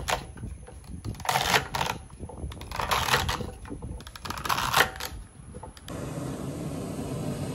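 A kitchen knife chopping celery stalks on a wooden cutting board, in four short runs of quick knocks. Near the end a steady rushing noise takes over.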